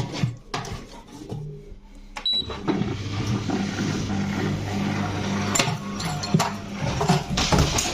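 Zanussi washing machine running without its shock absorbers: clatter and knocks, then a motor hum with a rattle sets in about two seconds in, and the unsupported drum bangs loudly near the end.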